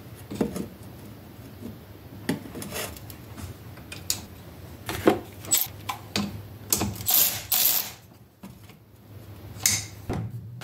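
Metal clinks and knocks of a minibike's exhaust pipe being handled and fitted, with a socket wrench clicking in quick bursts about two thirds of the way in as a mounting bolt is tightened.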